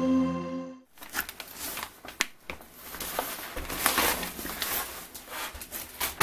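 A held chord of an intro jingle cuts off suddenly about a second in. After it, a large cardboard shipping box is handled and set down on a desk, with cardboard rustling, scraping and irregular light knocks.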